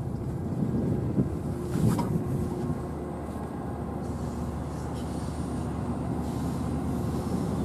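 NJ Transit ALP-45DP locomotive running on its diesel engines as it approaches, hauling Multilevel coaches: a steady low rumble that grows slowly louder.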